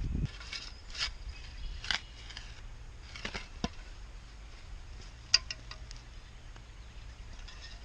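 Scattered scrapes and clicks of a broadfork working garden soil, with one sharp click about five seconds in, over a low steady hum.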